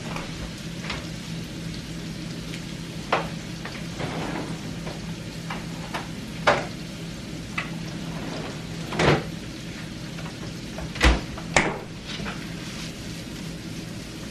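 A pan sizzling on the stove under a low steady hum, with scattered knocks and thuds as the refrigerator door is opened, items are handled and the door is shut; the loudest thuds come about nine and eleven seconds in.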